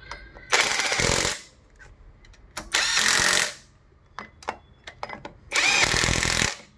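Cordless impact wrench running in three bursts of about a second each, driving bolts down.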